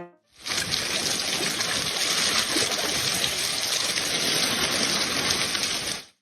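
Steady hiss of running water, starting abruptly and cutting off just before the end.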